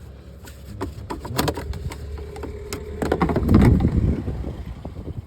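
Plastic air filter box being twisted and worked free by hand: scattered clicks and knocks of plastic tabs and catches, with a louder stretch of rubbing and knocking about three to four seconds in.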